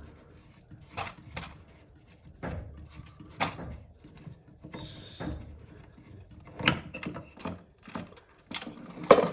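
Scattered clicks and light knocks, about a dozen at irregular intervals, as the water supply line is worked loose from the back of a toilet tank.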